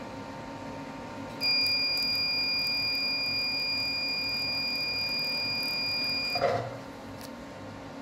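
Medical laser's emission tone: one steady high-pitched beep that starts about a second and a half in, is held for about five seconds while the laser fires, and cuts off with a brief noise.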